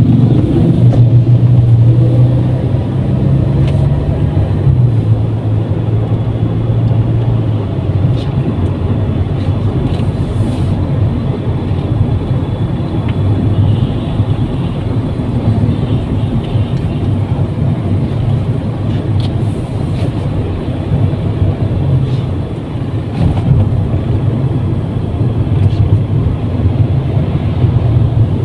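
Steady low rumble of a car's engine and tyres heard from inside the cabin while driving, a little louder in the first few seconds.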